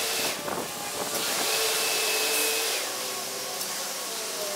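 Motor of a corded electric cutting tool winding down just after the start, then spinning up again about a second and a half in, running steadily for about a second and a half and winding down. Rustling and snapping of brush comes between the two runs.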